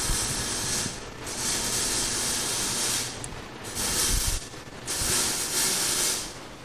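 Loud hissing in four bursts of one to two seconds each, with short breaks between them.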